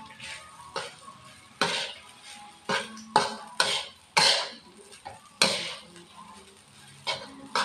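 Spatula scraping and tossing fried rice around an aluminium wok in quick, irregular strokes, about one or two a second.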